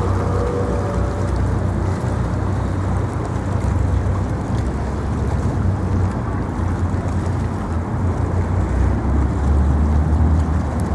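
Wind buffeting the microphone outdoors: a steady, uneven low rumble with a hiss above it.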